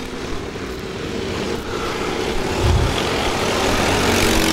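Racing kart engines running at speed on the track, several karts growing steadily louder as they come closer. There is a brief low rumble about halfway through.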